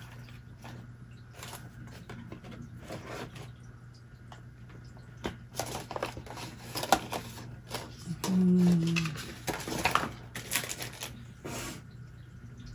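Paper and craft supplies being handled: scattered rustles, taps and small clicks, with a brief low hum about eight seconds in.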